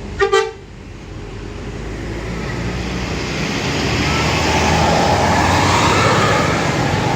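A short double horn toot, then a tour bus passing close: diesel engine and tyre noise swell to a peak and begin to fade near the end.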